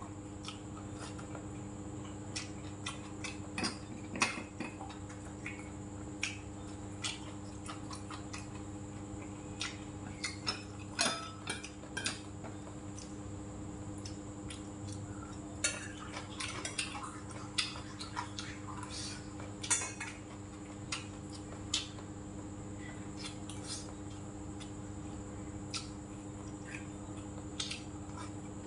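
Chopsticks and a spoon clicking and clinking against stainless steel and ceramic bowls while eating, in many scattered light strikes. Under them runs the steady hum of an electric fan.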